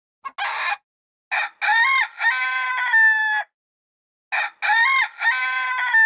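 A rooster crowing twice. Each crow is a run of pitched notes that ends on a long held note, and a short rough call comes just before them.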